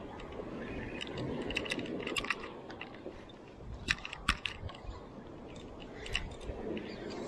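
Irregular clicks and knocks of a spinning rod and reel being handled and cranked, over a steady low rush.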